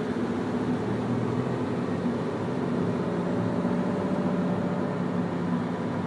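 A car's steady drone of engine and tyre noise while driving, picked up by a dashcam inside the car.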